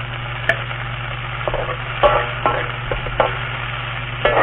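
Garlic, spring onion and tomato wedges sizzling in a metal wok, with a metal spatula clacking and scraping against the pan several times as they are stirred.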